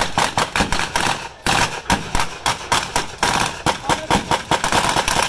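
Rapid blank gunfire in a battle re-enactment: a stream of sharp shots, several a second, with a short break about a second and a half in.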